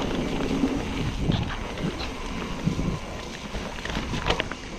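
Mountain bike riding a wet, rooty trail: wind buffets the camera's microphone over the rumble of tyres on wet dirt. Scattered sharp clicks and knocks come from the bike rattling over roots, the loudest about four seconds in.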